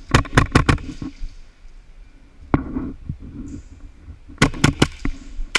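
Airsoft guns firing: a quick string of four shots, a single shot about two and a half seconds in, then another rapid string of three or four shots near the end.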